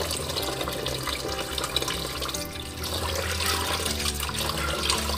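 Tap water running into a plastic basin of glutinous rice and splashing in the sink. Toward the end, hands swish and rub the rice in the water to wash it.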